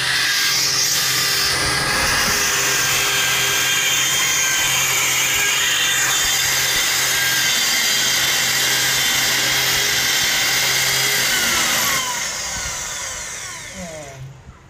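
Corded electric hand drill running steadily as it bores a hole through a bolt. About twelve seconds in it is switched off and its whine falls in pitch as the motor spins down.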